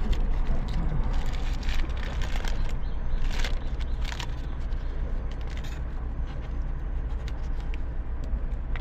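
Paper burger wrapper crinkling and rustling in short bursts as a large burger is handled and opened up, over a steady low hum.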